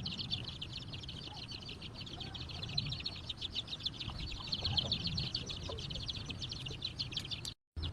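Steady, rapid, high-pitched chirring pulses, with a few soft chicken clucks. The sound drops out briefly near the end.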